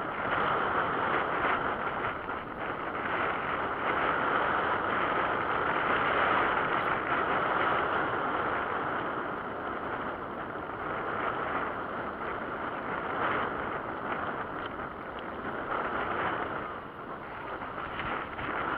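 Steady rush of wind and choppy water around a small fishing boat, with faint slaps of small waves against the hull.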